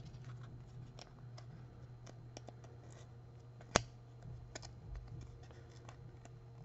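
Topps Rip trading card being torn and peeled apart by hand to free the mini card inside: faint scattered clicks and scratchy cardboard tearing, with one sharp snap about four seconds in. A low steady hum runs underneath.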